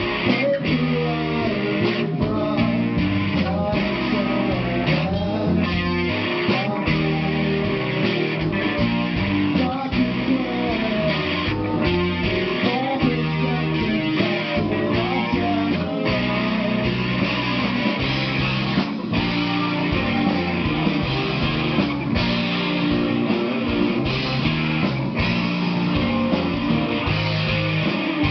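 Rock band playing live, with electric guitar to the fore over bass and drums; the music runs on without a break.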